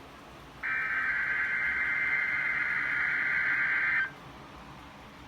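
NOAA Weather Radio SAME digital header: a harsh, buzzing data burst of two rapidly alternating tones, starting just under a second in and lasting about three and a half seconds. It is the coded alert header that opens a Required Weekly Test, with faint hiss before and after.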